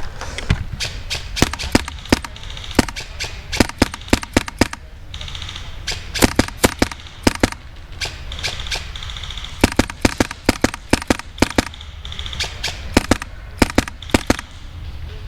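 Airsoft gun firing: single shots and short rapid bursts of sharp pops, repeated throughout.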